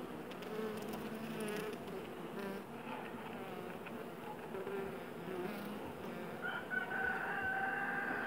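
A honeybee colony humming on the comb, a steady buzz that wavers in pitch. About six and a half seconds in, a single steady high tone rises out of the hum and holds for about two seconds, typical of a queen bee piping.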